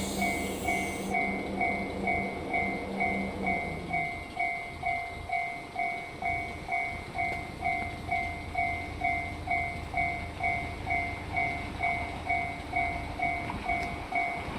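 Japanese level-crossing warning bell ringing, an even two-tone ding about twice a second: the crossing is closed for an approaching train.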